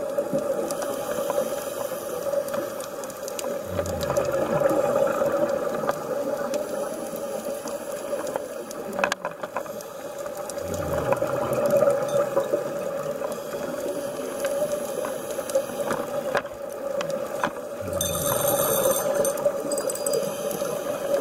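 Scuba divers breathing through regulators underwater: a gurgling rush of exhaled bubbles swells up about every seven seconds, three times, over a steady hum with scattered sharp clicks.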